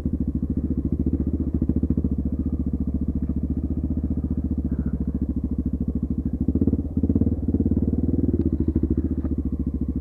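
Dual-sport motorcycle engine running at low, steady speed while riding a dirt trail, with a brief rise in engine speed and a drop about two-thirds of the way through.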